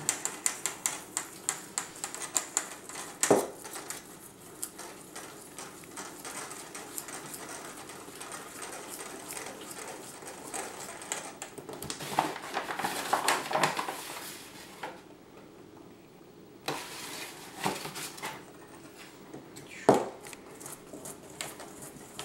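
Metal spoon stirring and clinking against a stainless steel mixing bowl while flour is mixed into egg noodle dough. A quick run of taps comes first, then a louder knock about three seconds in, a long stretch of scraping, and a few separate knocks near the end.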